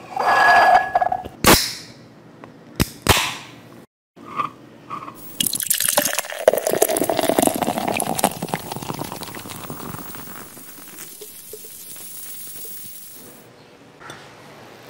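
Sharp clicks and knocks of a drinks can and glass in the first few seconds. Then, about five seconds in, cider is poured from the can into a pint glass: a long pour that tails off gradually and stops shortly before the end.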